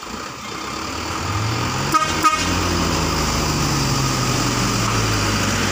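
Truck diesel engine pulling up a steep grade, growing louder and then running steadily. Two short horn toots come about two seconds in.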